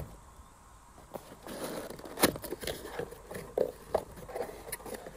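Cardboard box handled and opened by hand on a glass tabletop: from about a second in, the flaps are pulled open with scraping, rustling and several sharp clicks.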